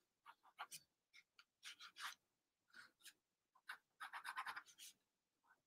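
Faint scratching of a pen drawing short strokes on sketchbook paper, with a quicker run of strokes about four seconds in.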